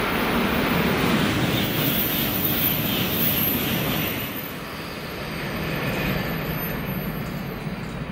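A JR West 500 series Shinkansen passing at speed straight through a station: a rush of wheel and air noise with a high hiss, loudest about one to three seconds in, then easing off as it goes by.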